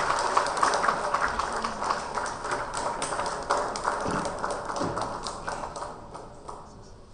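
Audience applause, many separate claps over a wash of clapping, dying away over about six seconds.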